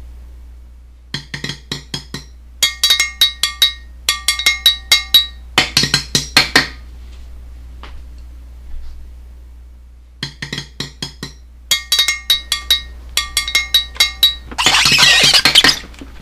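Runs of quick, sharp clinking strikes that ring at a few fixed pitches, played in rhythmic groups with short pauses between them, like small percussion being tapped. Near the end comes a louder hissing, rattling burst lasting about a second and a half.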